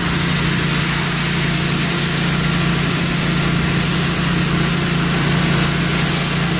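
An engine running steadily at one speed, with a steady hiss over it.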